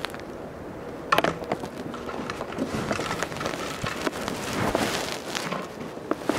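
Snow crunching and crackling, with a sharp knock about a second in and a long run of dense crackles in the middle.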